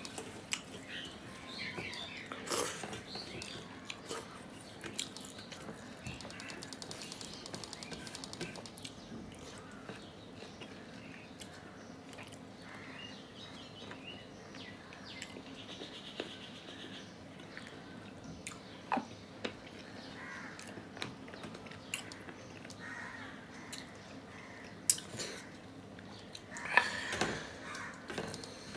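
Close-miked chewing and mouth sounds of a man eating fish curry and rice with his hand, with scattered small clicks and squishes from his fingers working the food on a steel plate. A crow caws in the background near the end.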